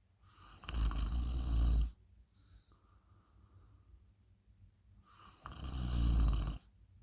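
A person snoring loudly: two long snores, each about a second, some four and a half seconds apart, with quieter breathing between them.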